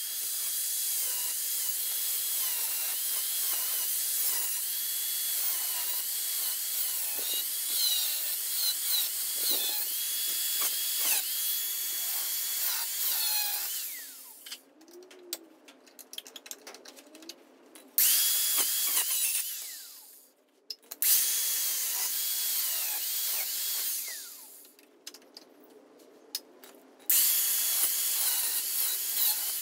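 Ryobi cordless angle grinder with a cut-off disc cutting rusted steel sill panel, running continuously for about fourteen seconds, its high whine dipping and recovering as the disc loads up in the metal. After that the grinding comes in three short bursts of two to three seconds, with quiet pauses between them.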